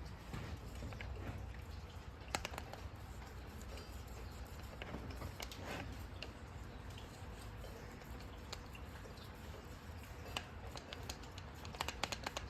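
Paintbrush working primer onto bare wood: faint scratchy brushing with a few light clicks, then a quick run of small ticks near the end.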